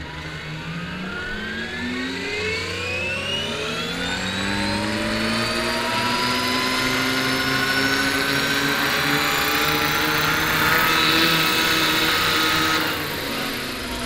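Electric drive and main rotor of a 1/5-scale Huey 1C RC helicopter spooling up, a whine rising steadily in pitch for several seconds, then holding and growing louder. Near the end the high whine cuts away suddenly and the pitch starts to sag: the power system cutting out with the blades at speed, an electrical cutout between flight pack, speed controller and motor.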